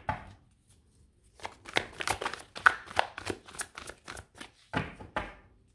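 A tarot deck being shuffled by hand: a quick, irregular run of card flicks and slaps. It starts about a second in and stops shortly before the end.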